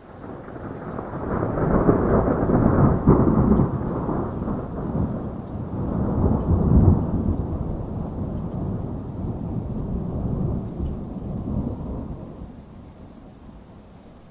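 A long rolling thunderclap with rain: the rumble builds over the first couple of seconds, surges again about seven seconds in, and dies away near the end.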